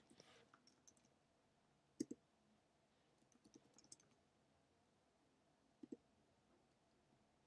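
Faint computer keyboard keystrokes in near silence: a pair of clicks about two seconds in, a quick run of light taps around three and a half to four seconds, and another pair near six seconds.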